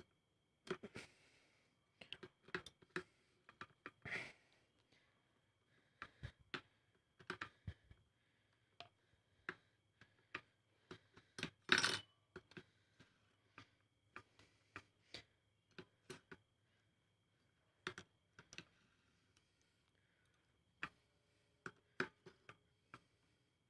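Faint, irregular metal clicks and clacks of a T-handle socket wrench turning the bolts of a motorcycle clutch pressure plate, which are being tightened a little at a time. There is one louder clack about twelve seconds in.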